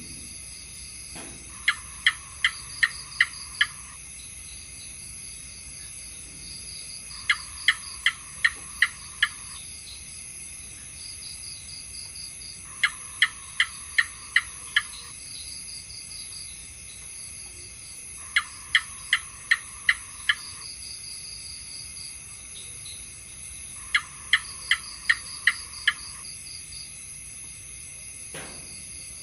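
House gecko calling: five bouts of about six sharp chirps each, roughly three a second, with a pause of about three seconds between bouts. The calls sit over a steady high-pitched background drone.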